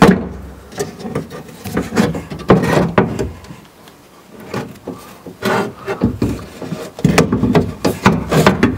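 Metal window regulator arm knocking and scraping against the window glass's bottom channel inside a 1996 Ford F-150 door as it is slid into place: irregular clicks, knocks and rubbing.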